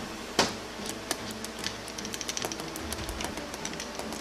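Screwdriver working at the bearing on the input-shaft end of a 68RFE input drum, metal against metal: one sharp click about half a second in, then a run of small irregular ticks and clicks.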